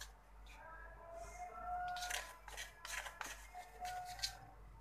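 Faint background music: a soft melody of short held notes.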